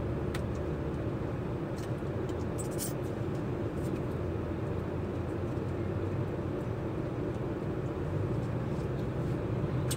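Steady low hum inside a parked truck's cab, its engine idling and air conditioning running, with a few faint ticks as food wrappers and a condiment sachet are handled.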